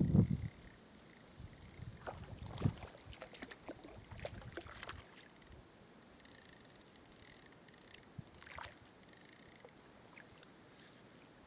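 Knocks and scrapes of handling, a few thumps at the start then scattered clicks and rustles, with short bursts of hiss near the middle, over the faint steady flow of a mountain stream.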